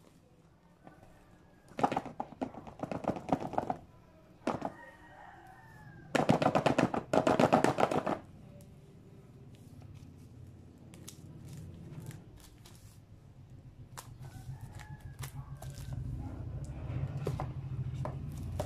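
Plastic shrink wrap crinkling and crackling in bursts as it is peeled off a smartphone's cardboard box, loudest about six to eight seconds in. After that come soft handling clicks, then a low rumble near the end as the box lid is slid off.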